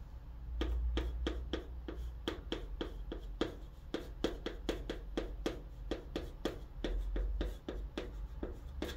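Chalk writing on a green chalkboard: a quick run of short scratchy strokes and taps, about three to four a second, starting just under a second in.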